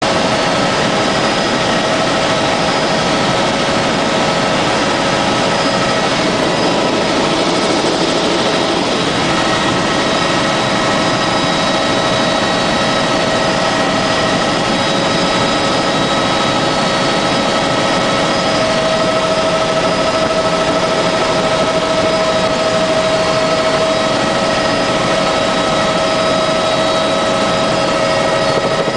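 Helicopter in flight heard from inside the cabin: a loud, steady engine and rotor noise with several high, steady whining tones, unchanging throughout.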